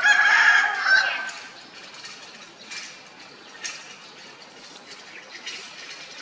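A rooster's loud call, about a second long, right at the start. After it only faint background sounds with a few light clicks.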